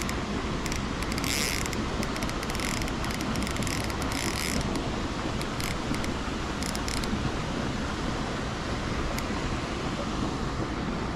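Fishing reel clicking in short bursts several times in the first half as a hooked fish pulls line, over steady wind noise.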